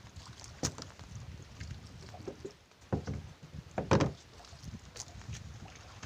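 Small boat on the water: a steady low wash of water against the hull, with a few sharp knocks, the loudest about four seconds in.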